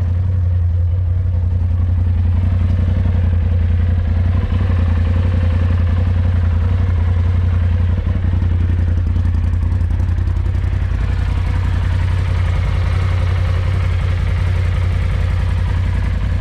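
Polaris RZR side-by-side engine running steadily at low revs, with some rattle and clatter.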